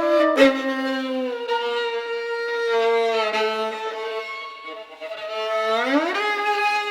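Experimental contemporary music for bowed violin: long held notes, often two at once, with a sharp percussive click about half a second in. Near the end, both notes slide smoothly upward together in a glissando.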